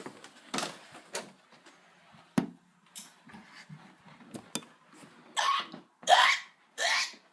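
A few light clicks and knocks, then from about five seconds in a run of short breathy vocal bursts from a person, about one every 0.7 seconds.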